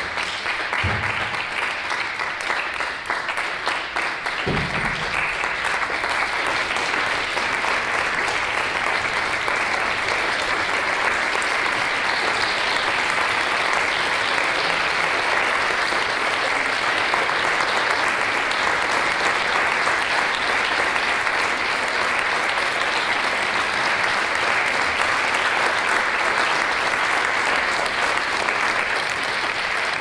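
Audience and performers applauding steadily, with a couple of short low thumps in the first few seconds.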